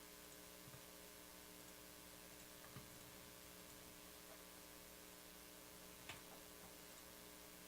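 Near silence: a low, steady electrical hum, with three faint clicks.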